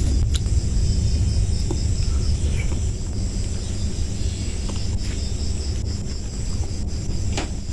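Insects chirping in a steady, rapid pulsing trill over a heavy low rumble of wind on the microphone, with a few faint clicks.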